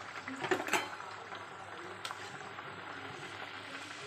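Hot oil sizzling steadily as masala puris deep-fry in an iron kadhai, with a cluster of sharp clicks and knocks just under a second in and another click at about two seconds.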